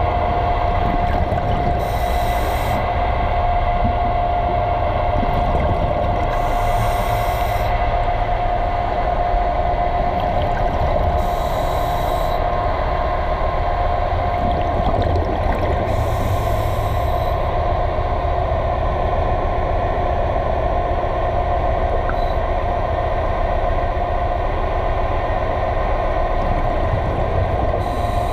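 Steady mechanical hum heard underwater, with a constant mid-pitched tone over a low rumble. Short bursts of hiss come about every four to five seconds for the first fifteen or so seconds, and once more near the end.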